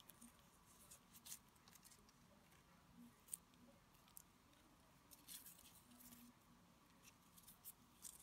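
Faint scattered crackles and rustles of florist tape being stretched and wrapped tightly around the wire stem of a gumpaste flower, over a quiet room.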